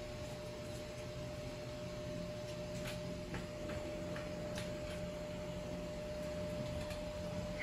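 A few faint clicks and ticks of a hand working the wheel's fixing knob against the metal mirror-stand frame, over a steady low room hum.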